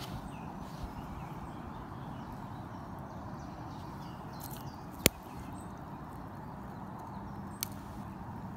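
Steady outdoor background noise with handling sounds as a fish is unhooked with forceps: one sharp click about five seconds in, the loudest sound, and a smaller click a couple of seconds later.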